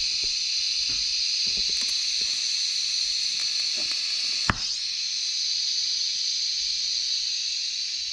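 TIG welding arc on a stainless steel manifold joint: a steady high hiss while filler rod is fed in, with one sharp crackle about four and a half seconds in. The arc cuts off suddenly right at the end.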